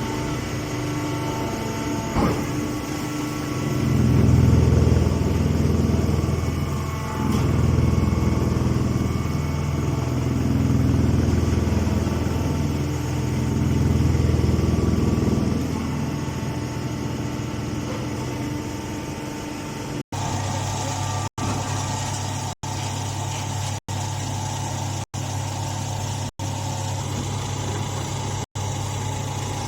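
Chopped straw bagging baler running: a steady machine hum with a deep surge about every three seconds for the first half. Later the hum steadies and is broken by brief silent gaps about once a second.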